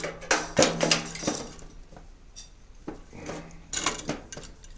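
Hard metal objects, tools or plug parts, clinking and clattering as they are handled and set down: several knocks in the first second or so, a few scattered ones, then a quick cluster near the end.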